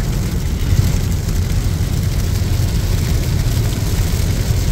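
Car cabin noise at highway speed in the rain: a steady low road and engine rumble with the hiss of rain and tyres on wet pavement.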